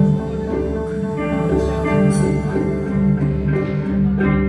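Ambient jam-session music: layered held tones with plucked notes sounding over them.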